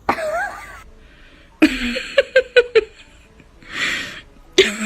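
A dog making short, quick yips in two rapid runs, with a brief gliding whine at the start and a breathy huff between the runs.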